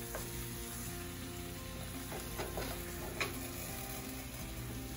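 Masala-coated chicken leg pieces sizzling as they fry in very little oil in a stainless steel pan, stirred and turned with a wooden spatula. A few scrapes and clicks of the spatula against the pan stand out, the sharpest a little after three seconds in.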